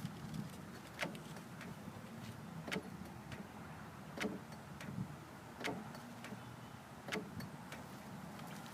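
A new power door lock actuator for a 2002 Honda CR-V, wired up outside the door, clicking each time it locks and unlocks: about five short clicks roughly a second and a half apart. The actuator is working, driving its tab up and down.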